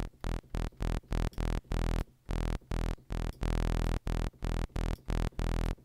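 Alchemy software synthesizer in Logic playing a plain sawtooth bass patch, tuned down an octave. One low note is struck over and over in short stabs, about three a second, with one held for about half a second after three seconds in. Each note starts and stops sharply, the sign of an amp envelope with its attack and release pulled right down.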